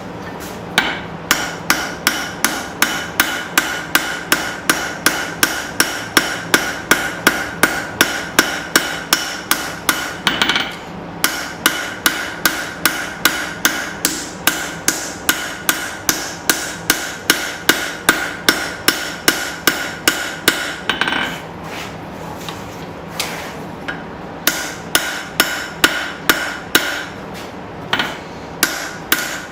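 Hand hammer striking hot steel on an anvil in a steady rhythm of about two to three blows a second, each blow ringing, as the knife blade is drawn out and thinned. The blows come in three runs, with short pauses about 11 seconds and 21 seconds in.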